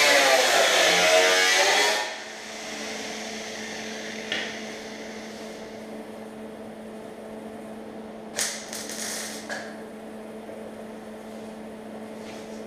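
Grinder cutting into steel quarter-panel sheet metal, its whine rising and falling under load, then stopping about two seconds in. A steady hum carries on after it, with a few short sharp bursts of grinding or metal noise around eight to nine seconds.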